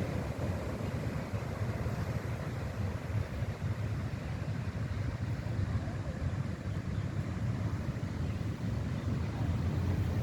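Steady low rumble of wind buffeting the microphone mixed with the roar of heavy ocean surf, without distinct events.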